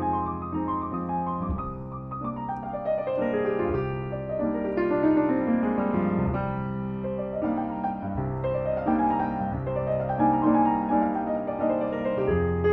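Solo piano playing a lyrical piece: broken chords flow over sustained bass notes, with a run of notes falling a few seconds in and another rising later.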